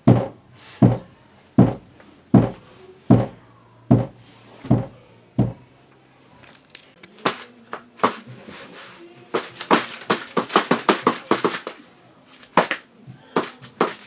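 Eight heavy, evenly paced thumps of a head knocking against a wall, then, after a short pause, a faster, irregular run of sharp slaps as two soft white objects are clapped together.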